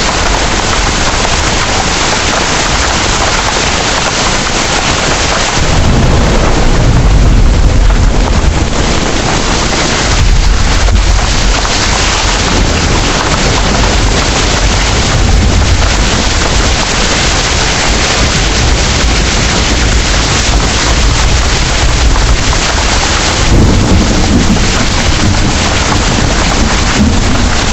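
Heavy rain pouring steadily, with low rolls of thunder rumbling beneath it about six seconds in, again about ten seconds in, and near the end.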